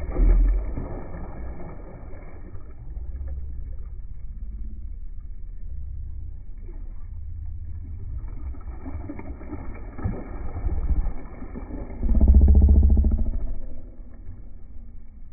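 A hooked tarpon splashing and thrashing at the water's surface beside the boat, over a steady low rumble. There is a loud splash right at the start and a longer, louder surge about twelve seconds in.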